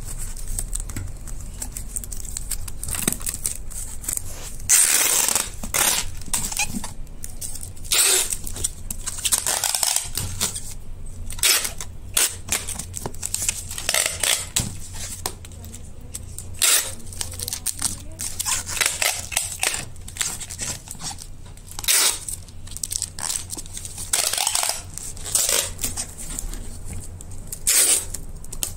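Cardboard box wrapped in plastic stretch film being handled and turned over, the film crinkling and the cardboard rustling in irregular bursts.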